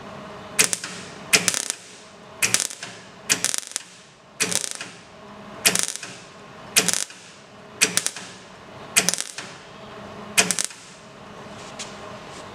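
MIG welder laying short stitch welds on a car's sheet-metal body panel: about a dozen brief crackling bursts of the arc, roughly one a second, with a steady faint hum between them. The welds are building up filler in a repaired hole in the bodywork.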